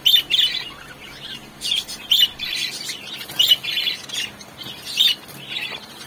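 Cockatiel chicks chirping: short raspy calls, repeated about twice a second.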